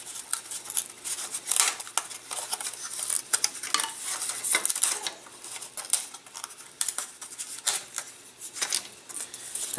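Thin laser-cut wood parts being pressed out of their sheet by hand: an irregular run of small, sharp snaps and clicks as the holding tabs break, with light clatter of the wood pieces.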